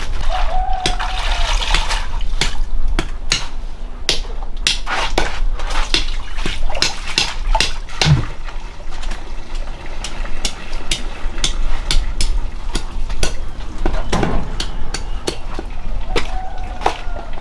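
Water splashing and wet leafy greens rustling as they are handled, with many small knocks and clatters in between.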